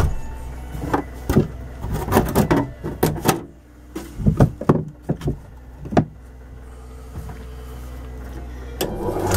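A small generator runs steadily in the background. Over the first six seconds comes a quick, irregular run of knocks and clunks. Near the end the wood lathe starts up; it runs slowly on the generator's weak power.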